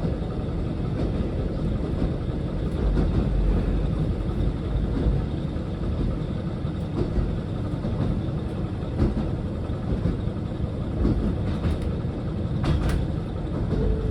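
Diesel train running along the track: a steady low rumble of engine and wheels, with a few short sharp clicks near the end.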